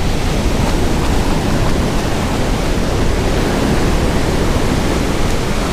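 Strong wind blowing steadily across the microphone over breaking surf, with whitewater washing up the beach.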